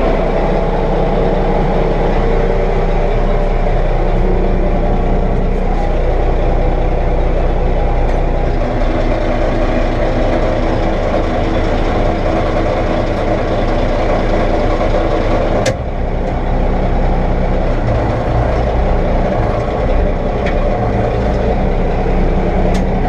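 Heavy diesel engine of farm equipment running steadily, with a couple of brief sharp clicks about two-thirds through and near the end.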